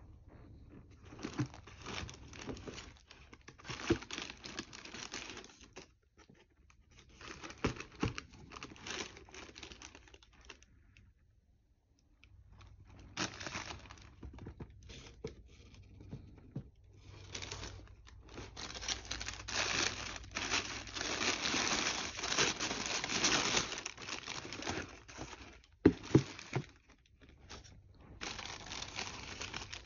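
Wrapping paper rustling and crinkling as hands pull it around the sneakers in their shoebox, in several bursts with pauses, longest and loudest a little past the middle. A couple of sharp knocks near the end.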